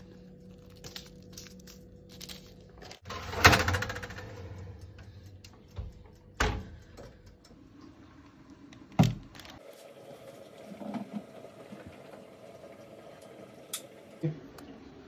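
Kitchen handling clatter: a few sharp knocks of a metal baking tray being moved and set down on a wooden board, the loudest about three and a half seconds in, with a low steady hum beneath.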